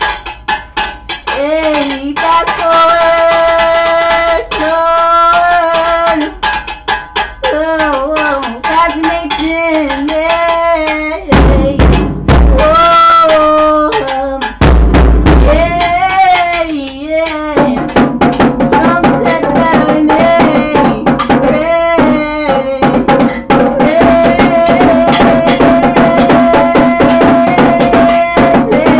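A homemade drum kit played with sticks: rapid cymbal and drum hits, with a man's wordless singing over them. Heavy low thumps come about 11 to 16 seconds in, and after that the drumming runs dense and steady.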